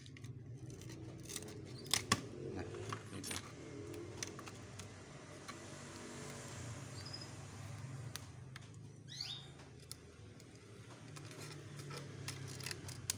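Scattered light clicks and taps of plastic and glass as the broken LCD assembly of an Oppo A3s phone is handled and pulled free of its frame, over a faint steady low hum. A short high squeak comes about nine seconds in.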